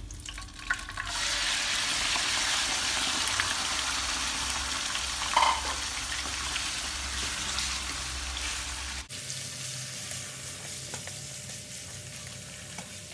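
Raw sliced meat dropped into hot oil in a wok and sizzling loudly, the frying hiss starting about a second in. A little after halfway the sizzle drops suddenly to a quieter hiss while the meat is stirred in the pan.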